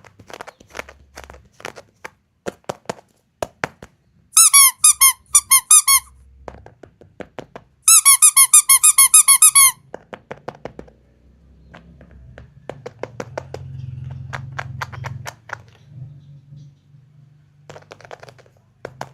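Loud runs of rapid high squeaks, about eight a second, twice, over scattered sharp clicks and taps from handling.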